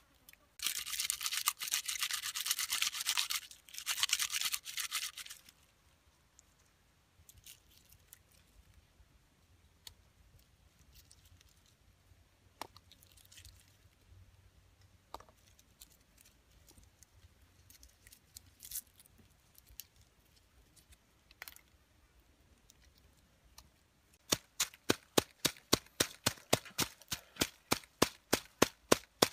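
A heavy knife blade scraping the papery skin off a garlic bulb, in two spells of a few seconds each, then a long quiet stretch with faint small ticks as the cloves are peeled by hand. Near the end, a wooden pestle pounds garlic and chillies in a coconut-shell mortar, about four quick strikes a second.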